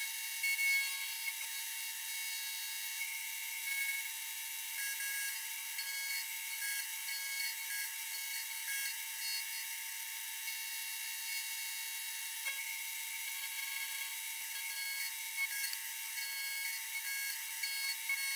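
Vertical milling machine with an end mill side-cutting a steel bracket. It makes a steady high-pitched whine of several tones, with the cutting sound brightening and fading as the cut goes on.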